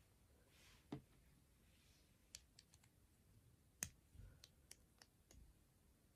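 Faint clicks of plastic LEGO bricks being handled and pressed together as a transparent cockpit canopy is fitted: scattered light clicks, the sharpest a little before the middle, with several more in the second half.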